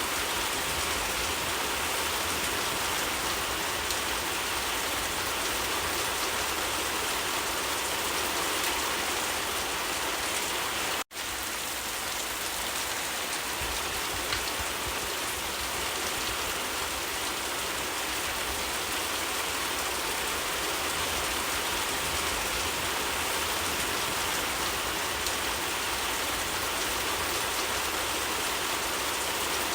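Steady rain falling on leaves, an even hiss with fine patter of drops. It cuts out for an instant about eleven seconds in, then resumes unchanged.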